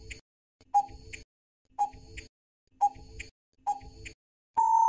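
Quiz countdown timer sound effect: a clock-like tick about once a second, five times, then a steady beep starting near the end that marks the time running out.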